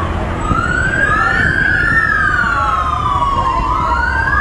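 Two or more emergency-vehicle sirens wailing at once, their pitches sliding slowly up and down and crossing each other, over a low rumble.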